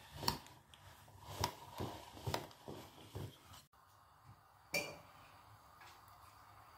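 Light taps and clicks as ground chestnut crumbs are tipped and knocked out of a food processor container into a bowl. Later a single sharp click, then only a faint steady background hiss.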